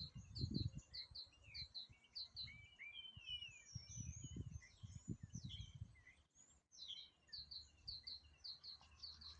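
Small birds singing: a repeated two-note chirp, about two pairs a second, with varied rising and falling whistles mixed in through the middle, over a faint low irregular rumble.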